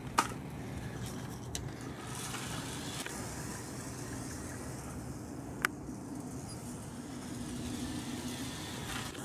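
Small electric RC truck driving over concrete: faint, steady motor and tyre noise, with a sharp click just after the start and another a little past halfway.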